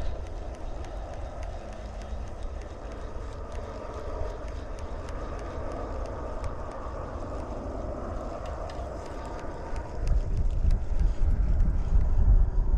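Wind buffeting the microphone in gusts, stronger near the end, over a steady rushing noise.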